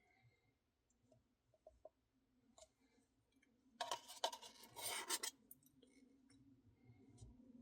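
Spoon scooping a cup of thick Blizzard ice cream: scattered small clicks, then a loud rasping scrape about four seconds in lasting over a second.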